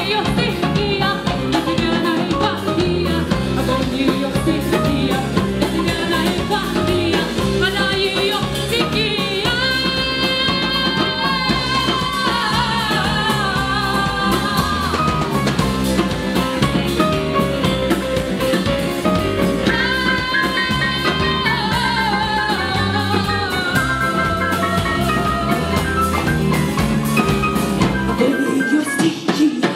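Live band performance: a female lead vocalist singing long, sustained notes over keyboard, electric guitar, bass guitar and drum kit. The band stops near the end.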